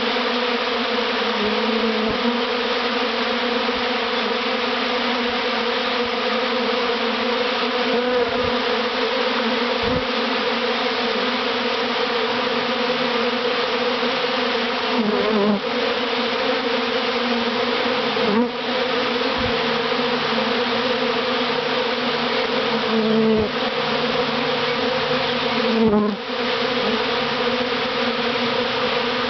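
Honeybee swarm buzzing at close range: a dense, steady hum of many wingbeats. Now and then a single bee passes close by with a brief swell and bend in pitch.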